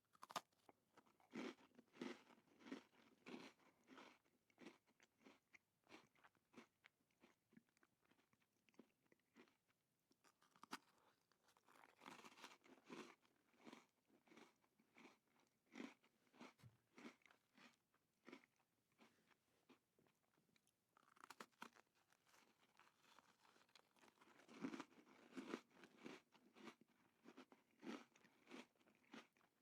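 A person biting into and chewing a crunchy cookie. Runs of quick crisp crunches come in several rounds, with quieter pauses between them.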